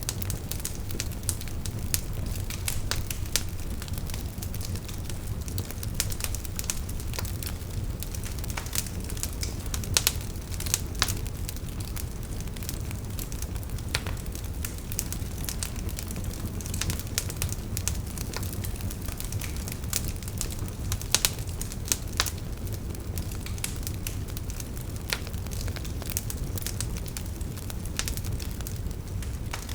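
Bonfire crackling and popping, dense sharp snaps over a steady low rumble, with a few louder pops about a third and two thirds of the way through.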